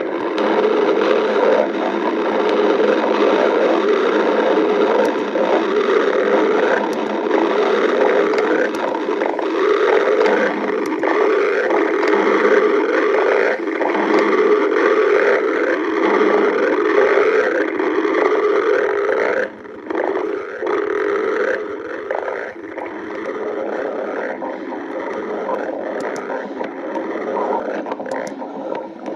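Stomach growling: a long unbroken run of rumbling gurgles that grows a little quieter about two-thirds of the way through.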